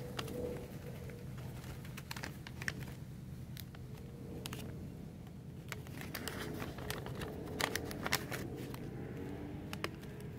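Plastic envelope and sleeve crinkling and rustling as they are handled and pulled open, with scattered small crackles, over a steady low hum.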